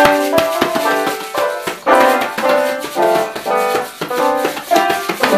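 Children's improvised band: piano notes struck in overlapping clusters over a fast, uneven patter of hand-drum slaps, with a shaker rattling along.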